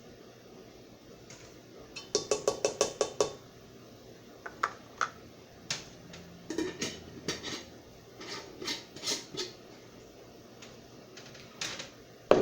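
Kitchen utensils clinking and tapping against a pot while brown sugar is measured in. A quick run of about eight taps comes about two seconds in, then scattered clinks and knocks.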